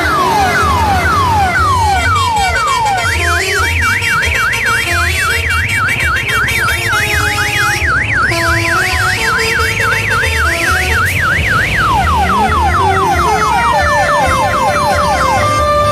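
Electronic siren-effect horn, of the kind fitted to Indonesian telolet tourist buses and odong-odong trains, cycling through patterns: a string of falling whoops about two a second, then a fast rising-and-falling yelp about three cycles a second, then falling whoops again, and a few steady horn notes near the end. Under it runs music with a steady thumping bass beat.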